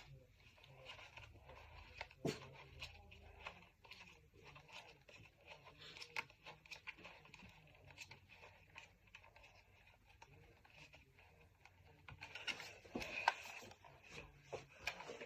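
Plastic parts of a toy gel blaster being handled and fitted together: faint scattered clicks and short scrapes, busier near the end.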